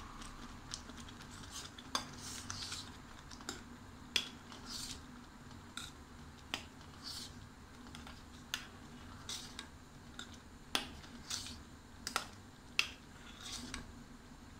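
A metal spoon stirring thick oat and flax seed soup in a small stainless steel saucepan, clinking and scraping against the pan's sides and bottom in irregular taps, roughly one every second.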